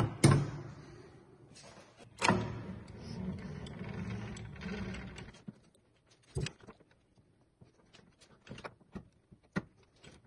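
Metal clunks and clicks of lathe tooling being handled as a quick-change tool post and tool holder are brought up to the chuck: a sharp knock at the start, a louder one about two seconds in followed by about three seconds of steady scraping noise, then scattered light clicks.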